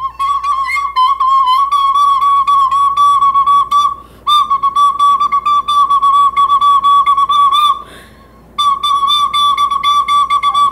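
A whistle blown on one steady high note, fluttering and stuttering rapidly. It is held in three long blasts with two short breath breaks between them.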